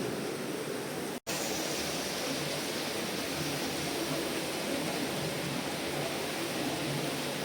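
Steady rain, an even hiss with no pitch or rhythm, cut for an instant about a second in.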